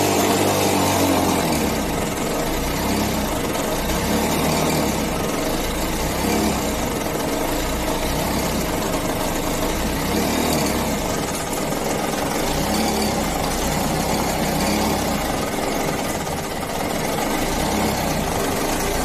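1993 LML Vespa Select's single-cylinder two-stroke engine idling steadily, its speed wavering slightly up and down a few times. The engine is running again after standing unused for 12 years.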